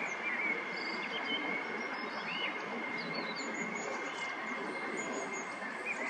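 Steady rushing background noise with a thin, constant high whine, over which small birds give scattered short chirps and whistles.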